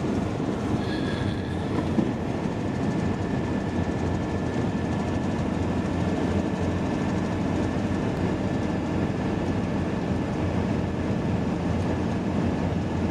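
Steady road noise inside a van cruising at motorway speed: tyre rumble and engine drone, with a faint high whine from about a second in.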